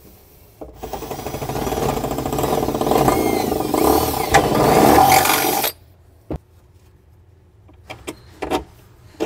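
A Milwaukee M18 cordless drill runs for about five seconds, boring a 5/16-inch bolt hole down through a pre-cut slot in a steel tray, then stops suddenly. A sharp click and a few light knocks follow.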